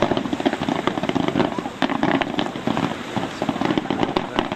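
Fireworks going off in a dense barrage: continuous rapid crackling and popping, with a few sharper bangs standing out through it.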